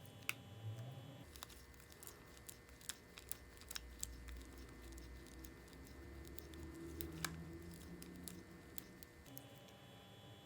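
Faint, scattered small clicks and taps over a low hum.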